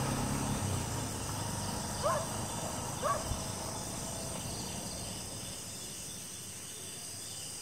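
Crickets chirring steadily. A motorcycle engine fades into the distance during the first second, and two short chirping calls come about two and three seconds in.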